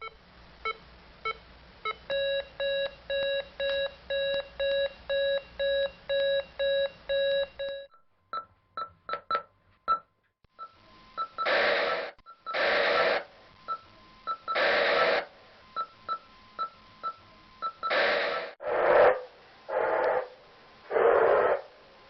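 Police radio sounds: a run of short beeping tones, about two a second, followed by clicks, then bursts of radio static broken by short chirps.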